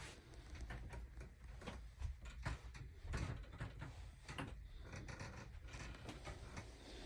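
Faint, irregular knocks and clicks over a low rumble, with the sound of a small enclosed room.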